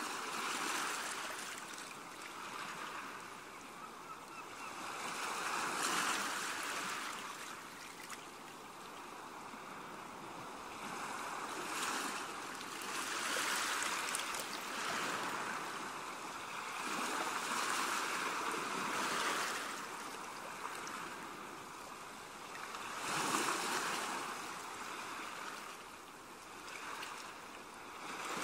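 Ocean waves washing in and drawing back, swelling and fading every five or six seconds.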